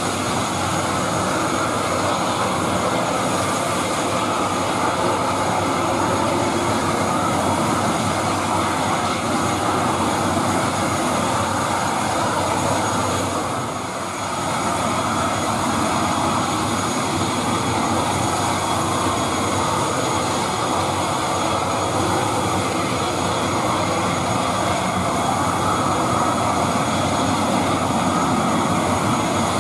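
ATR 72-600 turboprop engine running steadily on the ground: a constant rush with a high, even whine. The level dips briefly about halfway through.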